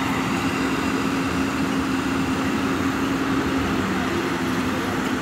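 Komatsu hydraulic excavator's diesel engine running steadily at working revs, a constant hum with a steady low tone.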